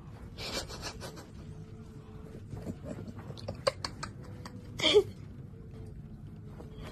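Thin plastic glove crinkling and rustling as a hand holds food up to a cat, with a few sharp clicks partway through and one short, loud sound about five seconds in.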